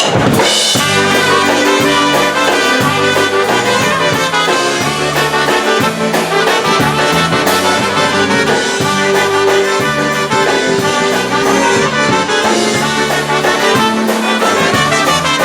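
Brass-led band playing the instrumental introduction of an oberek, a quick Polish folk dance tune, over a steady, rhythmic bass line.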